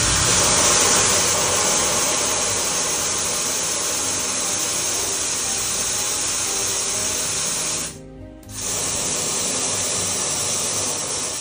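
A steady, loud hiss of a pressurised jet, of the kind used to blow out or wash brake caliper parts, cut off for about half a second around eight seconds in. Background music runs underneath.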